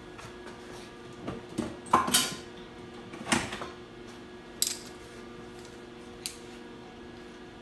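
Metal hand tools clinking and clanking as they are handled: a handful of separate metallic knocks, the loudest about two seconds in, over a steady low hum.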